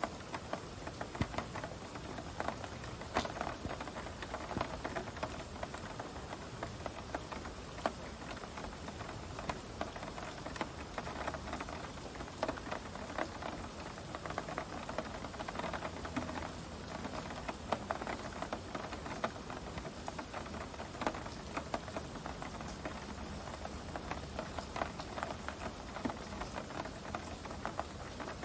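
Heavy rain pattering steadily on surfaces close to the microphone, with many separate drops ticking sharply.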